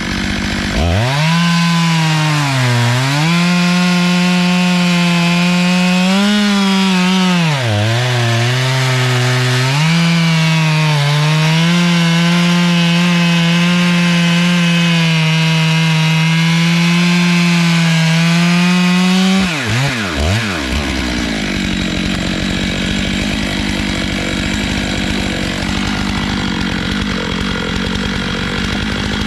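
Stihl MS 661 two-stroke chainsaw running at full throttle while cutting through a log, its pitch sagging twice under load before holding steady. About two-thirds of the way through, the throttle is released and it settles to idle.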